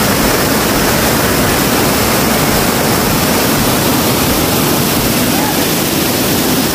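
Mountain stream cascading over boulders and a small concrete weir, a loud steady rush of falling water.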